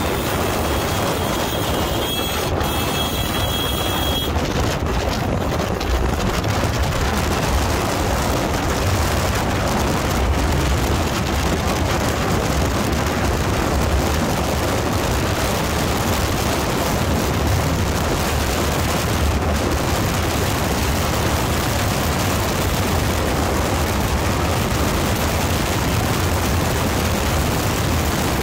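Sport motorcycle cruising steadily in fifth gear at highway speed, its engine running under heavy, steady wind noise on the microphone.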